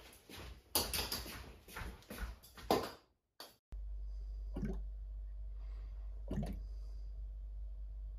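Irregular knocks and clatter around a steaming brew kettle. Then a steady low hum, with two short bubbling blips about two seconds apart from an S-shaped airlock on a fermenting bucket, the sign of active fermentation a few hours after pitching the yeast.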